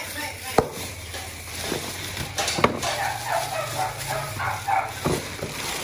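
Frozen slabs of pork belly clunking against each other and the plastic basin as they are handled: three sharp knocks, about two seconds apart.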